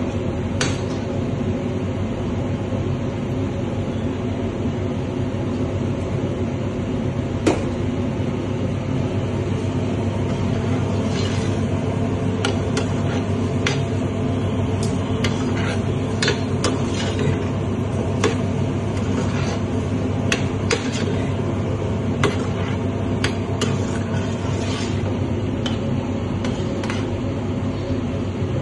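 A metal spoon scraping and clinking against a steel sauté pan while pasta is stirred in sauce, in scattered sharp clicks that come more often in the second half. Under it runs a steady kitchen hum with several droning tones.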